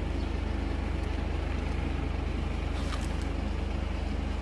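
Steady low hum of a running motor with a fast, even pulse, with a few faint clicks about three seconds in.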